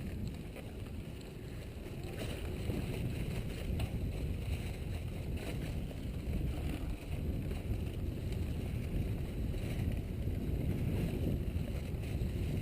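Steady low rumble of wind buffeting the microphone and tyre noise from a mountain bike being ridden along a dirt trail, slowly growing louder.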